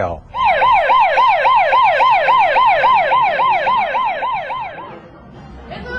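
Emergency siren in a fast yelp, its pitch sweeping up and down about three and a half times a second, fading out about five seconds in.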